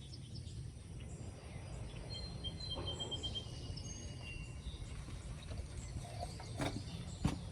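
Quiet outdoor background: a steady low rumble, with a bird chirping a quick run of short high notes about three seconds in. A few light clicks near the end.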